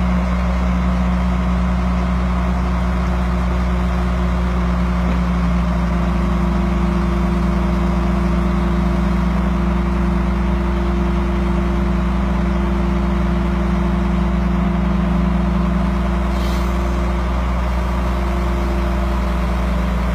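A boat crane's engine running steadily at one constant speed, a loud even drone with no revving.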